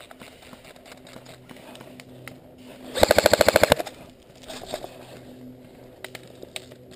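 Airsoft rifle firing one short full-auto burst of about a dozen rapid, evenly spaced shots, lasting under a second, about three seconds in.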